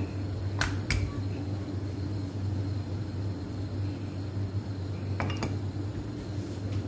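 A wooden rolling pin at work on a worktop, rolling out stuffed paratha dough. It gives a few sharp clicks and knocks: two about half a second apart near the start, and a quick pair about five seconds in as the pin is handled and set down. A steady low hum runs underneath.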